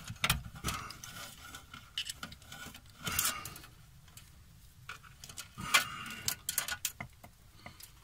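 Small clicks, taps and rustles of hands handling alarm-panel wiring and a plastic-housed circuit board module while the communicator's power wires are disconnected, with louder scraping handling noises about three seconds in and again near six seconds.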